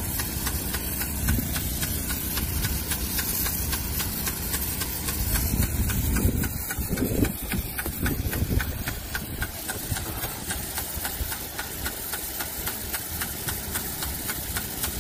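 Honda engine of a high-pressure pump running steadily as it drives water to a large sprinkler, with a fast, regular ticking throughout. A few louder low rumbles come near the middle.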